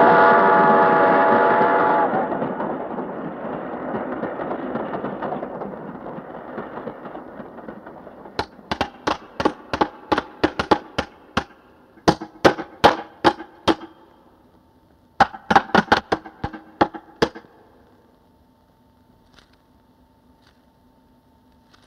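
A passing train's whistle sounding and cutting off about two seconds in, with the train's rush fading away over the next few seconds. From about eight seconds in come three runs of sharp clicks, and after that only a faint steady hum.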